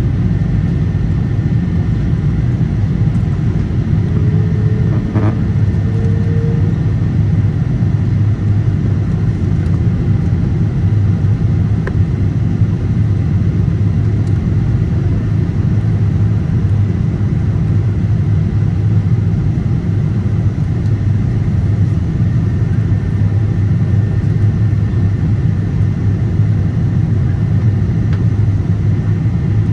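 Steady cabin noise inside a Boeing 777-300 airliner on descent: a deep, even rumble of engines and airflow heard at a window seat.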